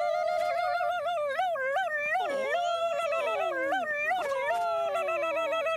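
Two cartoon voices warbling a high, yodelling turkey call together, an unbroken wavering 'ooh-loo-loo-loo' with falling slides woven through it.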